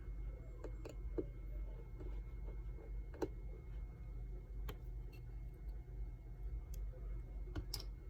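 Scattered light clicks and taps of small repair tools on an opened iPhone 15 as its battery is being disconnected, about eight in all, with the sharpest about three seconds in and near the end, over a steady low hum.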